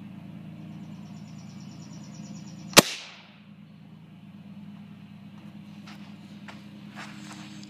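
.22 blank going off once in a 3D-printed barrel, struck by a BB gun acting as the firing pin: a single sharp crack about three seconds in, then a few faint clicks. A steady low hum runs underneath.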